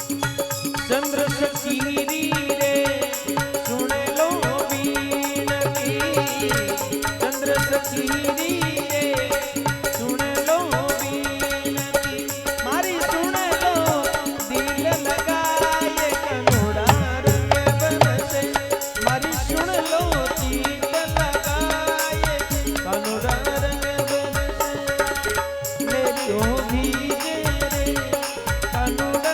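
Instrumental interlude of Rajasthani folk devotional music: a sustained drone and wavering melodic lines over tabla-style hand drumming, with a steady low drum beat coming in about two-thirds of the way through.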